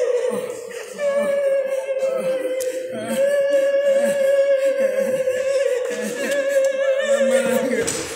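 Unaccompanied singing in long, slow held notes with vibrato, with brief breaks for breath.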